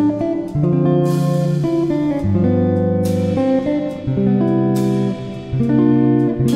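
Instrumental background music of slow, held chords, with a new chord struck about once a second.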